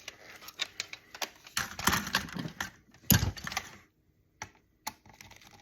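Hand tools and loose electronic parts clicking and clattering on a workbench as circuit boards are taken apart, with a heavier thump about three seconds in and a few isolated clicks near the end.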